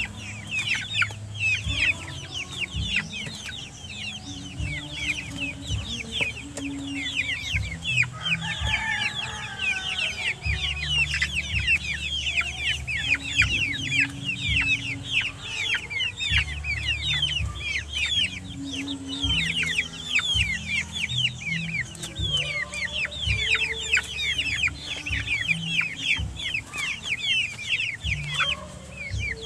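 A flock of young chickens calling continuously as they feed, a dense stream of short, high-pitched, downward-sliding peeps, several a second. Low rumbling and knocks sit underneath.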